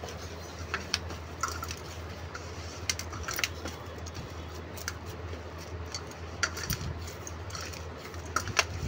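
A hand kneading semolina dough in a stainless-steel bowl, with irregular sharp clinks of bangles and a ring knocking against each other and the bowl, over a steady low hum.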